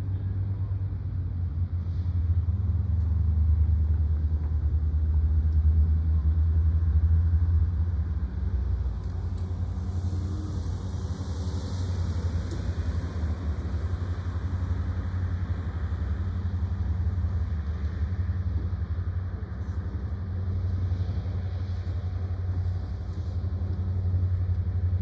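Norfolk Southern EMD SD70ACe diesel locomotive, a two-stroke V16, running at low power as it pulls a ribbon rail train slowly forward: a steady low engine rumble. A brief hiss comes about ten seconds in.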